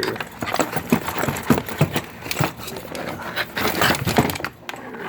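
Unboxing noises: packaging crinkling and rustling, with irregular knocks and clicks as an electric chainsaw sharpener is handled and lifted out of its box. The loudest knocks come about three and a half to four seconds in.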